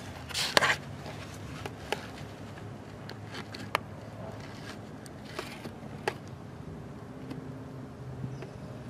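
A few scattered sharp clicks and light knocks at uneven intervals, over a faint low steady hum.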